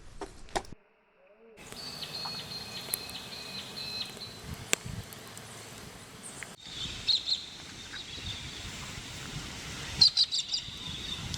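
Birds calling and chirping over outdoor background noise, in a few short stretches broken by abrupt cuts, with a brief near-silent gap about a second in.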